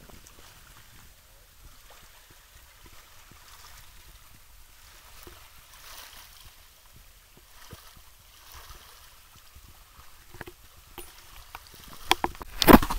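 Small sea waves lapping softly at the shoreline, a faint even wash with little ticks and splashes. A few sharp, loud bursts come near the end.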